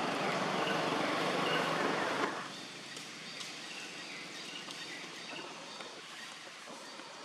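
A vehicle passing on a nearby road, a loud even rush of engine and tyre noise that cuts off abruptly about two seconds in. After that comes a quieter outdoor background with faint bird chirps.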